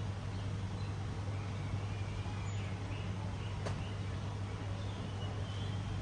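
A steady low hum, with faint chirping from small birds in the background and a single click a little over three and a half seconds in.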